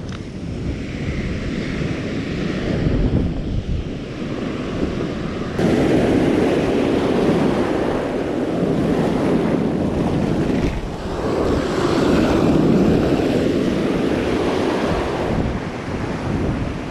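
Surf washing in around the wader's legs, with wind buffeting the microphone. The wash surges louder about five and a half seconds in and again around eleven seconds.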